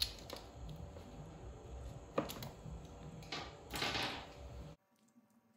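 Hand-handling noises of a throttle cable being fitted into a carburettor's slide cap: small metal clicks and rustling of cable and parts, with one sharp click about two seconds in and a louder clatter near four seconds, before the sound drops away abruptly near the end.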